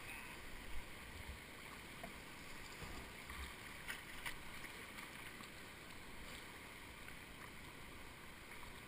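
Steady rush of a shallow river riffle flowing around a kayak, with paddle strokes in the water and two brief sharp sounds about four seconds in.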